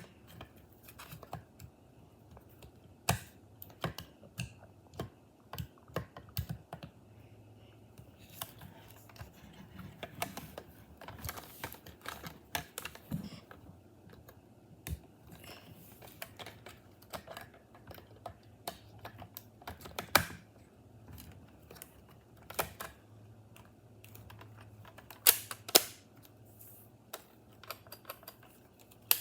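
Scattered, irregular light clicks and taps, like typing or handling small objects, with a few sharper knocks about two-thirds of the way through and again near the end.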